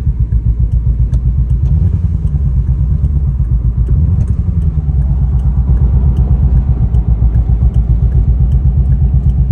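Chevrolet C6 Corvette's V8 running rough and sputtering, its loudness pulsing unevenly, heard from inside the cabin. The car is in reduced-engine-power limp mode and sounds like it's misfiring, which the owner suspects comes from a loose ground or broken wire.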